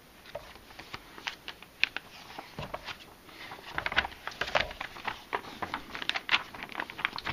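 Pages of a glossy paper catalog being flipped and rustled by hand: an irregular run of papery flicks and crackles, with a few sharper snaps as pages turn.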